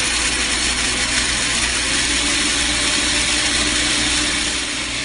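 Small electric blender with a grinder jar running steadily at full speed, grinding a dry mix of Indian barley, almonds, white chickpeas and black seed into powder.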